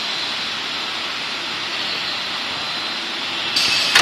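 Steady machine noise from a double-head uPVC window welding machine. Near the end, its pneumatic clamps release with a short hiss of air and a sharp clack.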